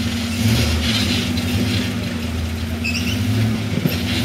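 A Jeep's engine running at low revs as it crawls up a rock climb. It holds a steady low note that swells slightly a couple of times.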